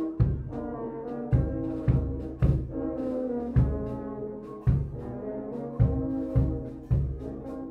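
Instrumental background music: a brass melody over repeated low bass hits.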